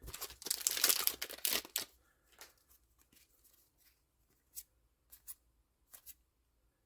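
A foil trading-card booster pack wrapper being torn and crinkled for about two seconds. It is followed by a few short, soft clicks of the cards being handled.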